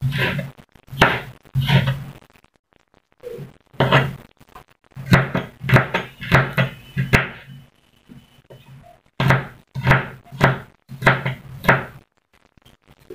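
Kitchen knife chopping garlic and red onion on a wooden cutting board: runs of sharp knocks with a dull board thud, about two strokes a second. The chopping breaks off briefly about two seconds in and again around eight seconds in.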